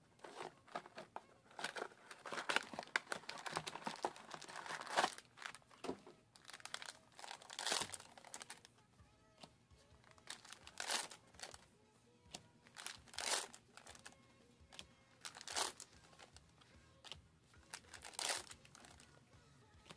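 Foil booster-pack wrappers crinkling and tearing as trading-card packs are opened. A dense stretch of crinkling comes first, then short rustles every two to three seconds.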